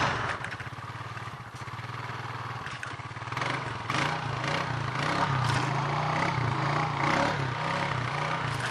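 Honda four-wheeler's engine running at low speed as the ATV rolls along, its note wavering up and down from about the middle on, with rattles and knocks from the machine over rough ground.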